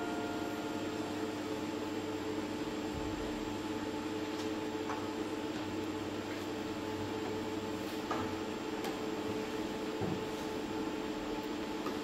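Steady low hum of room tone, with a few faint soft knocks scattered through it.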